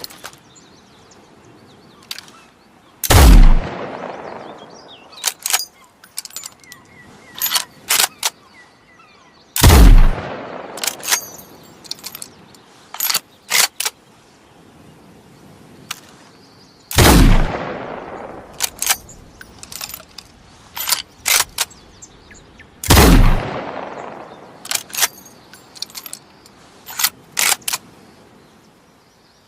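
Chassepot bolt-action needle-fire rifle fired four times, each shot with a long echoing tail. Between the shots come quick groups of metallic clicks, the bolt being worked to reload the single-shot rifle.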